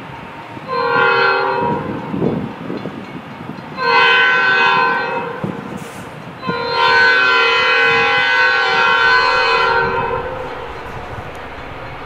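Metra F40PH diesel locomotive's multi-tone air horn sounding three blasts, two short and then one long of about three and a half seconds, over the low rumble of the train as it approaches.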